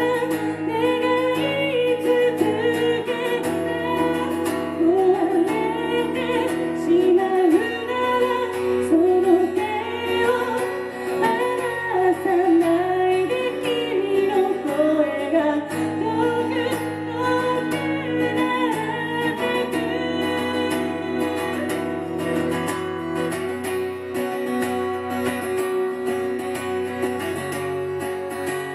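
A woman singing to her own strummed acoustic guitar. The voice drops out partway through, leaving the guitar playing alone.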